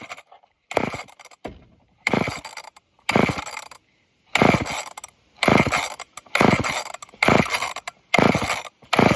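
Old chainsaw's recoil starter being yanked over and over, about nine quick pulls roughly a second apart, each a rasp of cord and ratchet with the engine turning over but not firing. The owner suspects it is having a hard time pulling fuel, perhaps through a dirty filter.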